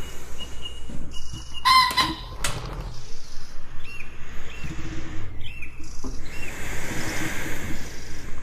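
Jungle birds calling over a steady rush of running river water. About two seconds in there is one loud call with several overtones, and short chirps follow a few seconds later.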